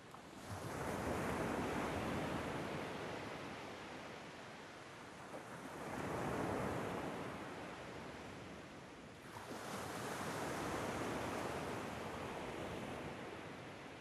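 Soft surging wash of ocean-like surf, three slow swells that each rise and fade over several seconds, with no music or tones.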